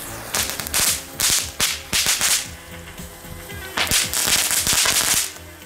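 Small F1 'Meteorite' ground fireworks crackling and flashing on the ground: a few short bursts of rapid crackles in the first two and a half seconds, then a longer run of crackling from about four to five seconds in.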